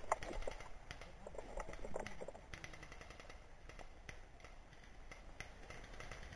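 Faint, scattered pops of airsoft gunfire, coming at irregular intervals rather than in a steady burst.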